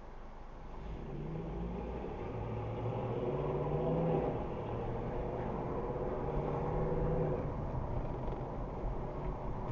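A car on the move: steady engine and road rumble with a low hum, growing louder over the first few seconds.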